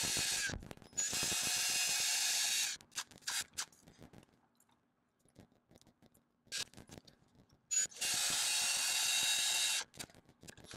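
Cordless drill running a diamond hole saw into brick, sped up: three runs of high-pitched grinding whir, one very brief at the start, one from about a second in and one near the end, with rapid small clicks and knocks between.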